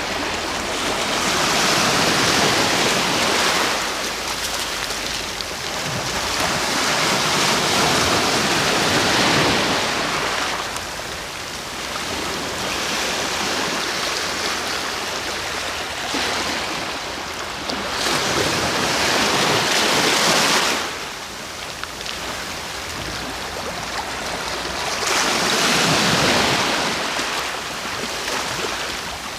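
Sea waves breaking on the shore, about four larger waves surging in and falling back, with a steady wash of surf between them.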